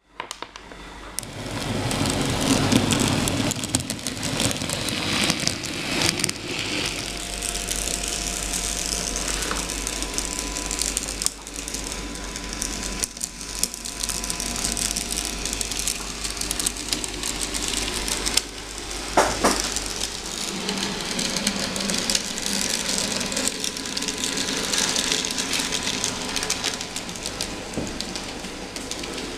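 Small model tram running along a model railway layout's track: a continuous rattling hiss of wheels on rail, with a faint thin steady whine and one brief louder squeak about two-thirds of the way through.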